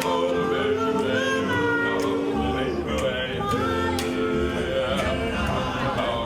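A doo-wop vocal group singing in close harmony: several voices hold long chords together, and a deep bass part comes in underneath about two and a half seconds in.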